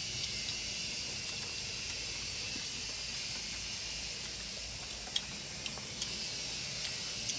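Steady high-pitched hiss, with a few faint clicks a little past five seconds in.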